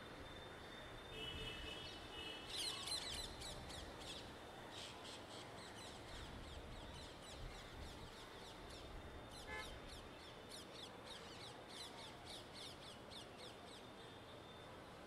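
Birds chirping in rapid runs of short, high-pitched notes over a faint, steady low hum of distant city traffic. A single short, lower call stands out about ten seconds in.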